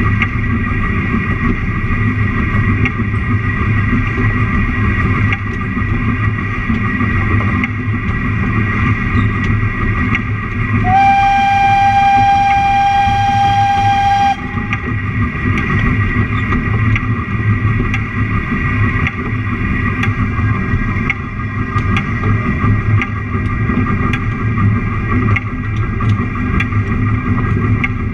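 Narrow-gauge train running along the track, a steady rumble with occasional sharp clicks. About eleven seconds in, the train's warning signal sounds one loud, steady high note for about three seconds, sliding up slightly at the start and cutting off abruptly.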